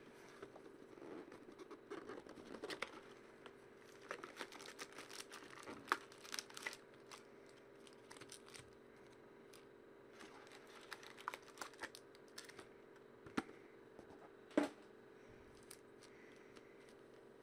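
Faint crinkling and tearing of trading-card packaging as a card box is opened and its foil packs are handled, with scattered light clicks and taps and one sharper tap late on.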